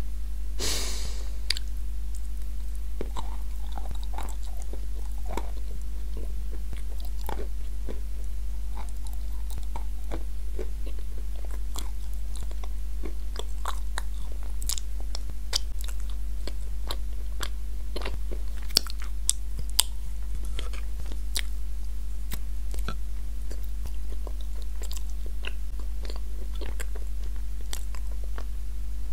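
Close-miked chewing and crunching of crumbly edible clay (Turkestan white and blue Uzbek clay with cream), giving many small sharp crackles, over a steady low electrical hum from the recording setup.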